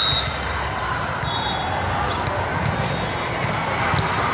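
Volleyballs thudding off hands and the floor across a busy sports hall over crowd chatter, with a short referee's whistle at the very start and a fainter whistle from another court about a second and a half in. Near the end a jump serve is struck.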